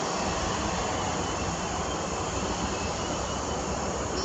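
EVA Air Airbus A321-211's CFM56 turbofan engines running steadily as the airliner taxis and turns onto the runway: an even, unchanging jet rush with a faint high whine.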